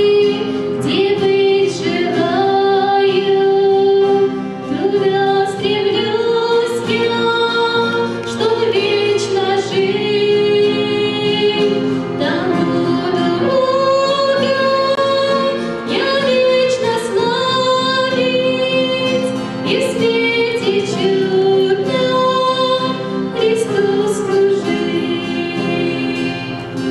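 A young woman singing a worship song through a microphone, her voice holding long notes with vibrato, over acoustic guitar strumming.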